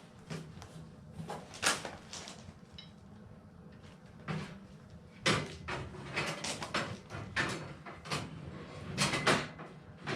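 Metal clunks, knocks and scraping as a DeWalt storage drawer unit is set into a metal shelving rack and shifted into position. The knocks come irregularly, with the loudest a little over five seconds in and again near the end.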